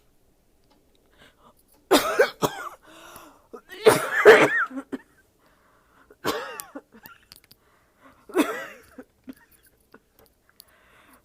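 A person coughing hard, in separate harsh, voiced coughs about every two seconds, the loudest about four seconds in. It is a painful cough, felt in the throat and chest.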